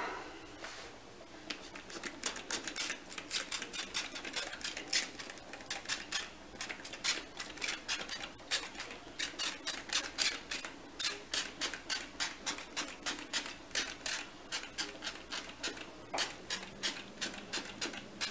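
Trigger spray bottle of alcohol pumped rapidly, giving short hissing sprays about three to four a second, misting the top of freshly poured cold-process soap.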